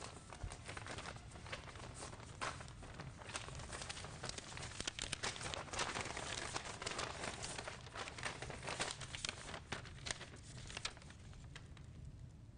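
Paper envelopes being torn open and letters unfolded: crisp rustling and crinkling, busiest in the middle and thinning out near the end, over a low steady hum.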